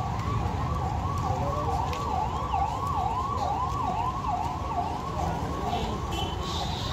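Ambulance siren sounding a fast yelp, its pitch rising and falling about two to three times a second, over the hum of a street crowd and traffic.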